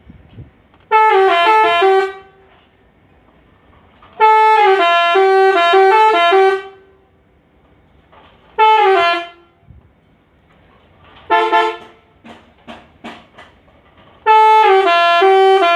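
Telolet musical horn on a Mercedes-Benz bus playing short tunes of stepping notes in loud, separate blasts. The second and last phrases run about two and a half seconds each, and a few short toots follow the shorter fourth blast.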